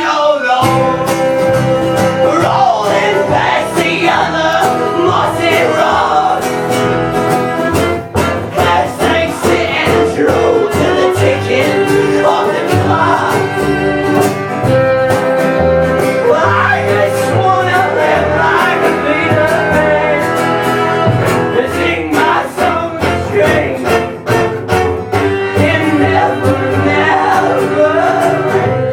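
A band playing a country- and bluegrass-flavoured song on string instruments, with no words sung.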